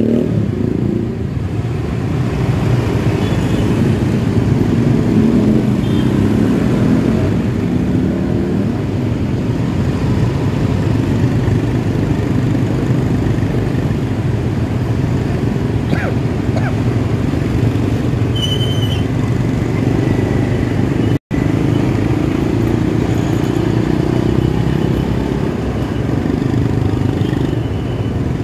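Motorcycle and car engines in slow, stop-and-go traffic, heard from a motorcycle riding among them: a steady low drone of idling and creeping engines. A brief high tone sounds a little past the middle, and the sound cuts out for an instant about three-quarters of the way through.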